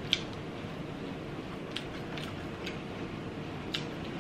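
Close-miked eating: quiet chewing with about five small, sharp clicks scattered through, over a steady low hiss.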